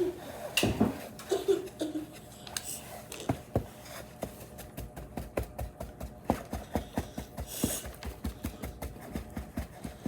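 Hands working kinetic sand and its plastic container: many small irregular clicks and taps, several a second, thickening in the second half, with a few soft vocal sounds near the start.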